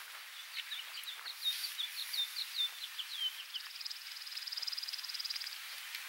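A songbird singing a quick run of about a dozen down-slurred chirps, followed by a high, even buzzing trill that lasts about two seconds, over a steady outdoor hiss.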